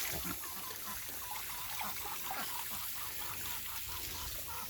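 Ducks quacking in a quick run of short calls, about three a second, over the faint hiss of water from a hose.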